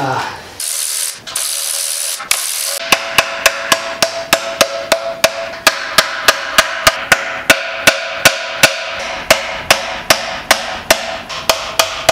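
Hammer tapping a screwdriver wedged into the seam between a 4G63 engine's steel oil pan and the block, prying the pan off against hardened gasket-maker sealant. From about three seconds in, the sharp metal-on-metal blows come roughly three a second, with a ringing tone beneath them.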